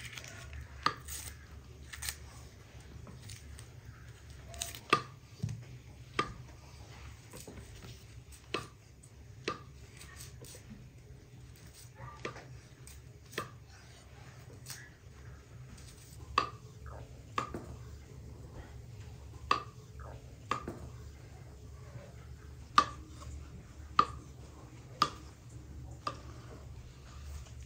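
Knife chopping food on a cutting board in slow, single strokes, roughly one a second.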